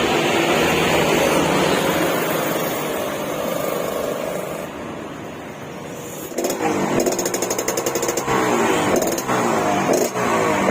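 Suzuki RX-King's single-cylinder two-stroke engine revving through a crackly 'garing' aftermarket exhaust. The engine holds a steady high rev, eases off about five seconds in, then from about six seconds in the throttle is blipped over and over with a rapid rasping rattle.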